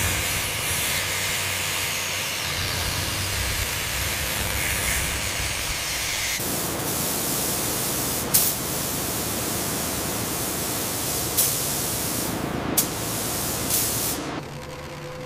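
Angle grinder cutting steel plate, a steady grinding noise with a low hum. About six seconds in it gives way to the even hiss of spray guns coating a floor, broken by a few sharp clicks.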